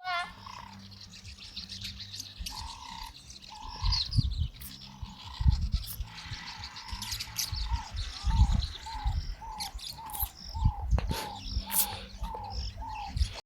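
Birds calling: one repeats a short, slightly falling note about twice a second through the second half, with higher chirps around it. Low rumbles come and go underneath, loudest about four, five and a half and eight and a half seconds in.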